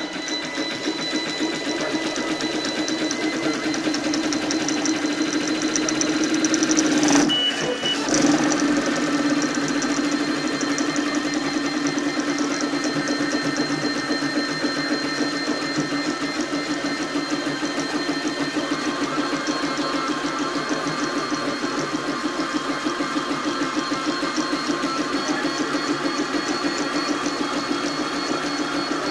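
High-speed 3D printer printing, its stepper motors buzzing in a fast, busy rhythm as the toolhead darts about, over a steady whine. There is a brief break about seven seconds in, then it carries on unchanged.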